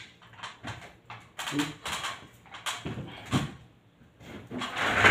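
Scattered knocks and clatter from an aluminium folding step ladder being climbed down and handled, about five separate knocks, then a louder, rising clatter near the end as the ladder starts to be moved.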